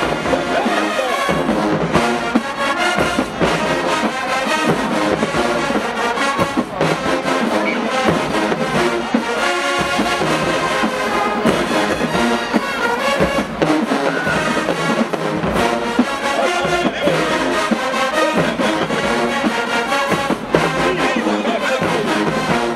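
Marching band brass section playing loudly, trumpets and trombones over a steady drum beat.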